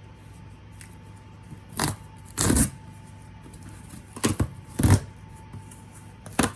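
A shipping package being opened by hand: five short bursts of tearing and rustling packaging, the longest about a quarter of a second.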